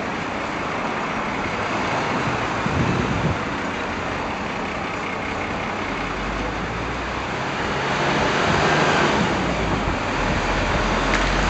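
City street traffic: a steady wash of passing cars and buses, with a low engine rumble coming in about halfway and growing louder near the end.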